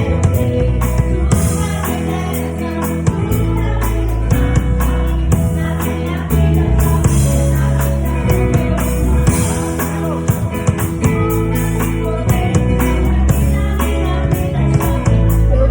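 Gospel worship music with singing, and a drum kit playing along with frequent drum and cymbal hits over a steady bass and chords.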